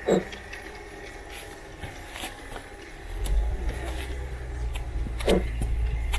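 Low, steady engine-like rumble from a G-scale garden-railway model locomotive's sound unit, growing much louder about three seconds in and holding steady.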